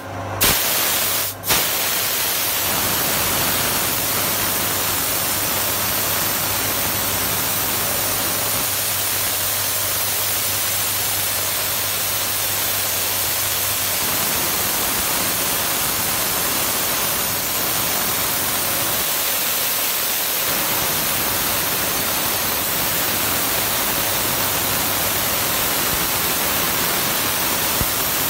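CNC machining center running its program, with a loud, steady hiss of spraying coolant and a low steady hum underneath. Two sharp clicks in the first second or so as the spray comes on.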